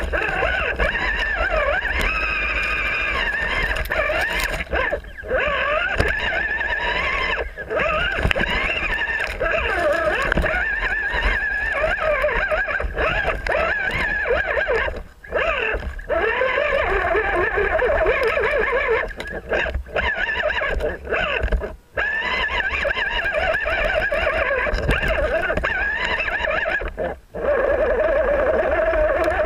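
Electric motor and gear drivetrain of an RC rock crawler whining as it crawls, the pitch wavering up and down with the throttle over a low rumble. It cuts out briefly several times as the throttle is let off.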